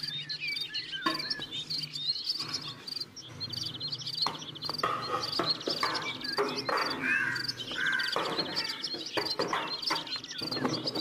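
Birds chirping and an insect trilling in repeated buzzy bursts, with scattered clinks and scrapes of a steel ladle stirring in a steel pot.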